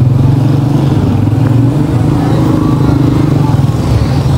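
Motorcycle engine running steadily at an even low pitch, with no revving.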